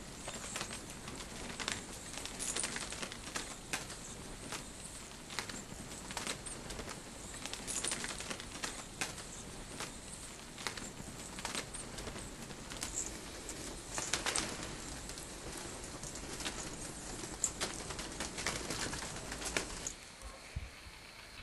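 A crowd of greater mouse-eared bats flying in a roof space: fluttering wings with many short, sharp, high-pitched clicks at irregular intervals. The fluttering and clicking stop about a second before the end.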